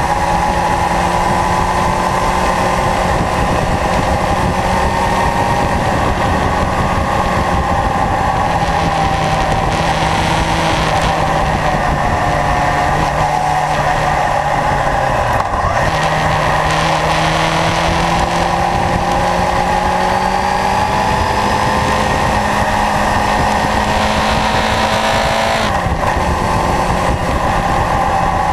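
Kawasaki Zephyr's air-cooled inline-four engine running under way, heard from low on the front fork through steady wind and road rush. The engine note rises and falls with the throttle, dips briefly about halfway and drops sharply near the end at a gear change.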